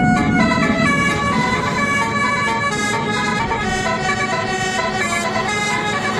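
Telolet Basuri multi-tone bus horn playing a tune: several horn tones sound together and step from note to note every fraction of a second, over a steady low hum.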